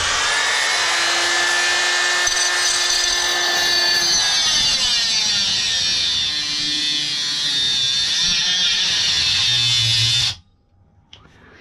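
Small Chicago Electric handheld power tool running under load as it cuts into a microwave magnetron: a high motor whine over a harsh grinding hiss, whose pitch wavers as it bites. It cuts off suddenly about ten seconds in.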